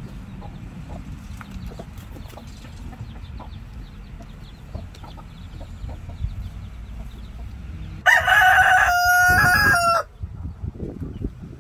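A rooster crowing once, a loud crow of about two seconds held in stepped tones, about eight seconds in. Before it, hens cluck softly.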